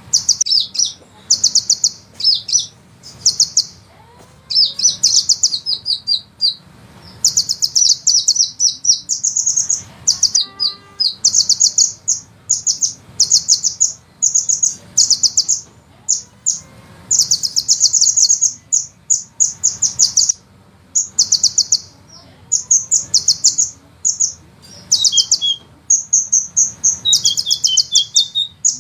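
Sunbird singing rapid, high, rattling trills in bursts of about a second, one after another with brief gaps, over a faint steady low hum.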